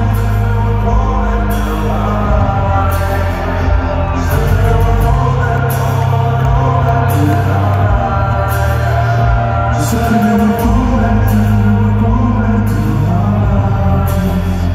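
Rock band playing live in an arena: a singer's vocals over electric guitar, bass and drums, with cymbal crashes at a slow, steady beat.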